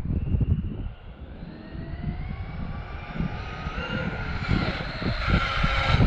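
Traxxas XRT RC monster truck's electric motor and gears whining, rising steadily in pitch and getting louder as it accelerates toward the microphone, up to a brief burst of full throttle near the end.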